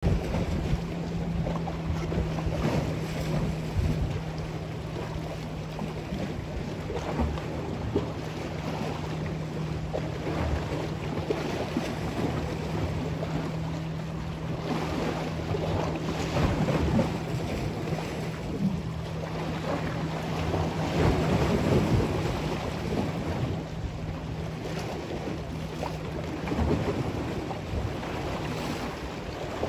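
Wind buffeting the microphone over choppy lake water, with a steady low hum that stops near the end.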